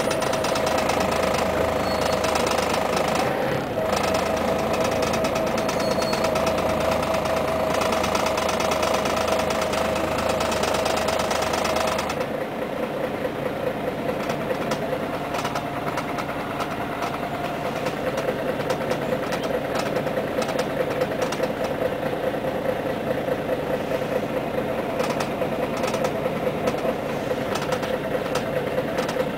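Scania CN113CLL city bus engine running, heard from inside the passenger cabin as a steady drone with a whining tone. About twelve seconds in, the engine note changes and the sound drops a little.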